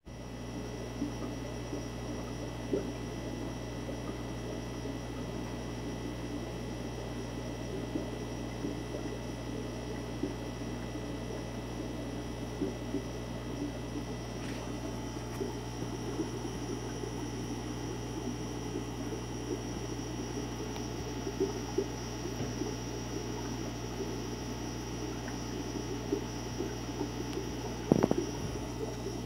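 Aquarium filter running: a steady low hum with water trickling and bubbling over it, and small scattered ticks. A brief louder knock near the end.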